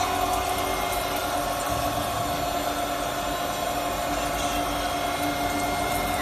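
Small CNC milling machine running, a steady whine of several fixed tones over an even mechanical hum.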